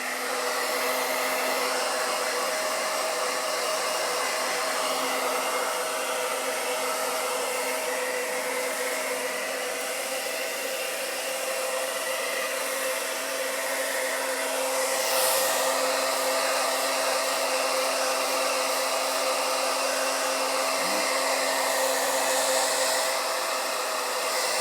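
Handheld hair dryer running steadily: a constant hum with several steady tones under the rush of air.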